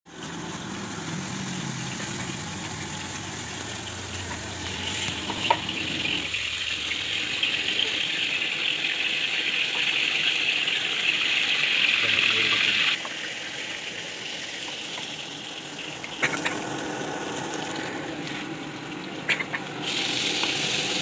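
Hot oil sizzling in a wok, with a few sharp clinks of the metal ladle against the pan. The sizzle swells about five seconds in, drops suddenly a little past the middle, and surges again near the end as shredded vegetables are thrown into the hot oil.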